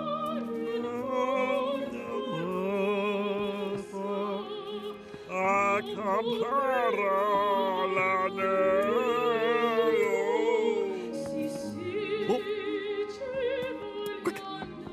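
Operatic singing with a wide vibrato over classical accompaniment, the voice loudest in the middle stretch.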